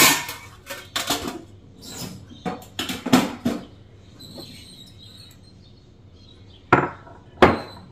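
Kitchen utensils clinking and knocking against steel containers: a run of clinks in the first three and a half seconds, then two sharper knocks near the end. Between them, hot mustard oil froths and sizzles faintly in a steel pot with the freshly added turmeric.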